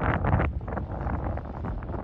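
Strong gusty sea wind buffeting the microphone, with a low rumble, strongest in the first half second and then easing off.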